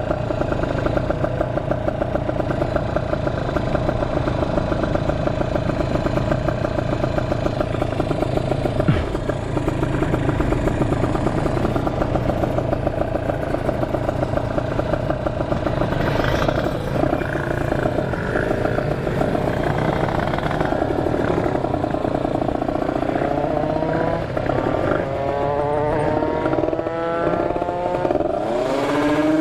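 Kawasaki Ninja 150RR two-stroke motorcycle engine running at a steady speed. In the last several seconds it revs up and down in rising and falling sweeps.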